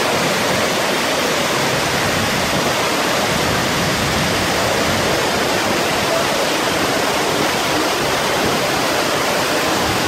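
Tortum Waterfall and the river below it: a loud, steady rush of falling and running water, unchanging throughout.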